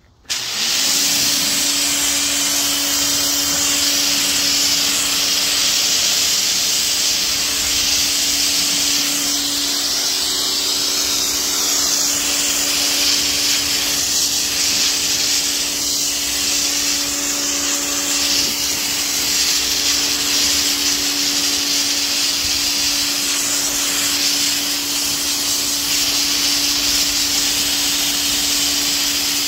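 Pressure washer with a foam cannon running steadily, spraying soapy water onto a truck's sheet metal: a loud, even hiss of spray over a steady motor hum.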